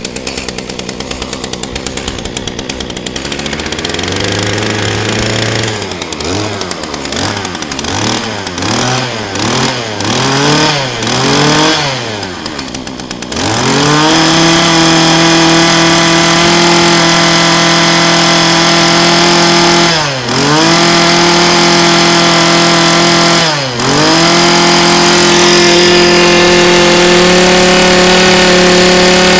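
A 27cc two-stroke brush cutter engine idling, then revved up and down about once a second, then held at high throttle from about halfway through, dropping back briefly twice before revving up again.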